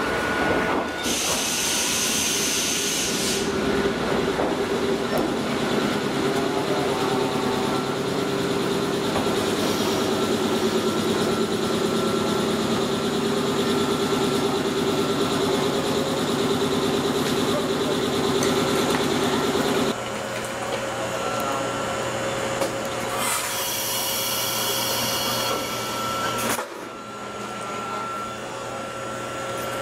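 Ichibata Electric Railway 3000-series (ex-Nankai 21000) electric trains standing at a platform during coupling: a short loud hiss of compressed air about a second in, then a steady mechanical drone from the train's equipment that drops and changes about two-thirds through, followed by a second air hiss.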